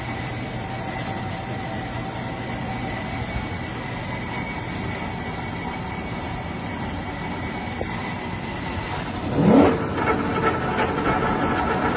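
Steady hum of shop machinery with a few held tones, then about nine and a half seconds in a lathe motor spins up with a loud rising whine and settles into a steady run.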